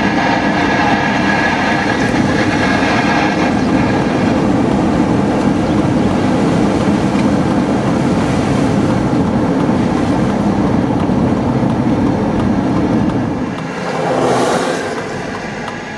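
Steady rumble of road and tyre noise inside a vehicle moving at speed. It eases off near the end, just after a brief rushing swell.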